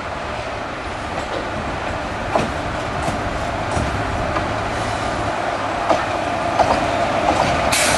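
Indian Railways WAG-7 electric locomotive hauling a freight train as it approaches: a steady running hum grows louder, with scattered sharp clicks of the wheels over rail joints, the loudest just before the end.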